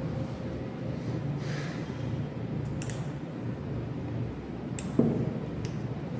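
Metal surgical instruments, a needle holder and thumb forceps, clicking a few times as they are handled during suturing, over a steady low room hum. The loudest click, about five seconds in, rings briefly.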